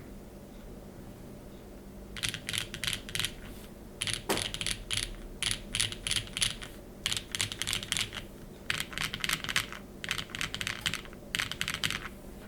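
Typing on a Keycult No. 2/65 mechanical keyboard with lubed, filmed Cherry MX Black linear switches in an aluminium plate and GMK keycaps. Quick runs of keystrokes come in bursts after a pause of about two seconds.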